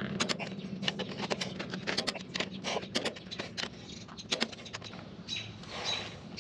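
Torque wrench ratcheting in quick, uneven runs of clicks while tightening the cylinder head bolts of a Ford 460 V8 to 140 ft-lb, over a low steady hum.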